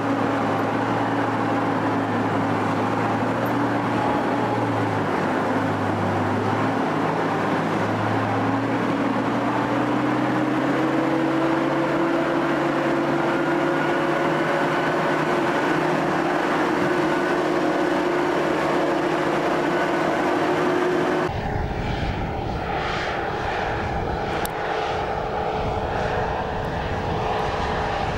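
Steady drone of a light aircraft's engine and propeller, its pitch rising slowly. About two-thirds of the way through the sound changes abruptly to a rougher, deeper rumble.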